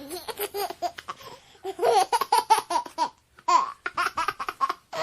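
A baby laughing in strings of short, rhythmic giggles. A softer run comes first, then two louder bouts with a brief pause between them.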